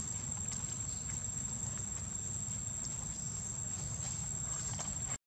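Insects droning with one steady high-pitched tone over a low rumble, cutting off suddenly about five seconds in.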